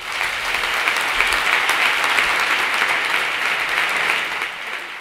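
A large seated audience applauding steadily, with many hands clapping at once. It eases off slightly near the end.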